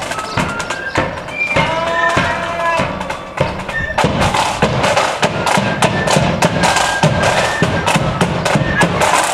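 Marching flute band playing, with flute melody over rapid side-drum strokes and a bass drum beat; the drumming grows louder about four seconds in.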